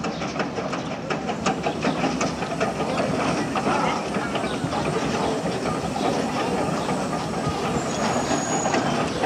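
Achenseebahn steam rack tank locomotive rolling slowly with its carriages, wheels clicking over the rail joints, and steam hissing from low by the cylinders.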